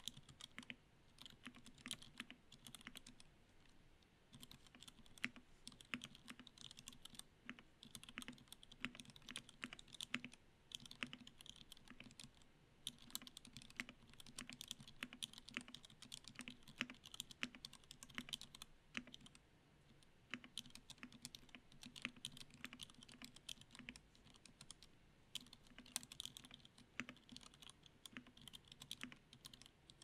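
Continuous typing on a Duck Octagon v2 mechanical keyboard with lubed 65 g Vintage Black linear switches and GMK keycaps: a fast, irregular stream of keystrokes with a few short lulls.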